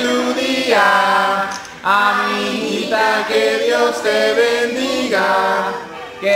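A group of voices singing a capella in long held notes, with short breaks between phrases.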